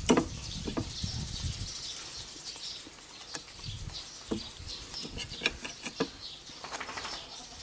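Metal fork clicking and scraping on a ceramic plate as French toast is cut and picked up, a handful of sharp irregular clicks. Birds chirp in the background throughout.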